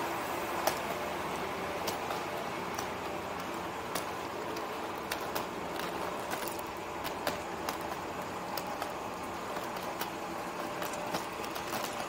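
Steady ambient hum with scattered light clicks and taps throughout.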